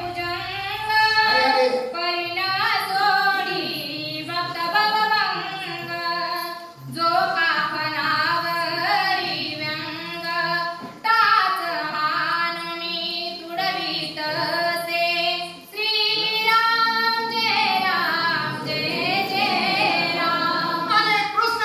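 A woman singing a Marathi devotional verse in a high voice, in long, drawn-out melodic phrases with short breaks between them.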